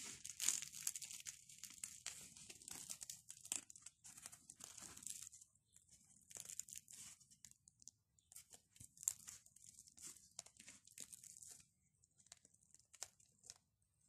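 Fried yeast-dough flatbread with a lightly crisp crust being torn apart by hand: faint crackling and crinkly tearing of the crust and soft crumb, dying away about twelve seconds in to a few soft clicks.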